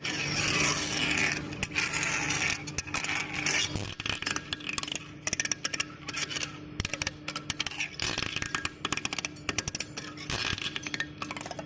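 Production machinery running with a steady hum, overlaid by rapid, irregular clicking and scraping.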